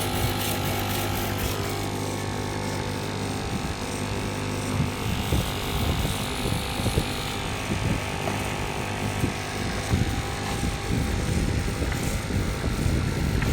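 Stone CNC machine at work: a steady low motor hum for the first half, then a rougher, noisier working sound with scattered light knocks.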